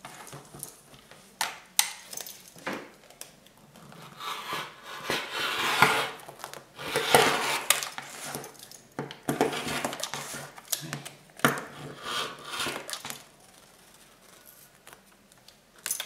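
Rotary cutter run along an acrylic quilting ruler, slicing through the quilted fabric layers to trim the edge: a series of rough scraping strokes, with a few sharp clicks and knocks between them.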